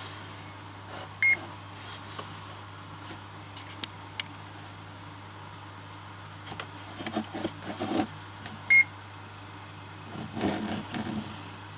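Bosch DNM 60 L digital inclinometer giving two short, high beeps about seven and a half seconds apart, with clicking and rustling handling noise between and after them.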